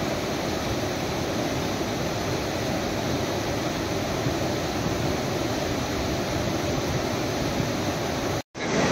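Fast floodwater of the overflowing Ambika River rushing past in rapids, a steady, even noise with no let-up. The sound cuts out briefly near the end.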